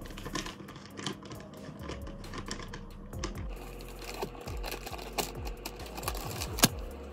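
Irregular light clicks and taps of small objects being handled close to the microphone, over a steady low hum.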